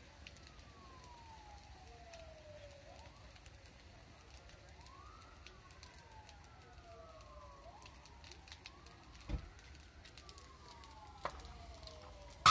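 Distant emergency-vehicle siren wailing, each wail rising quickly and falling slowly over a few seconds, with two wails overlapping in the second half. Faint crackling and two sharp pops, about nine and eleven seconds in, come from the burning pickup truck.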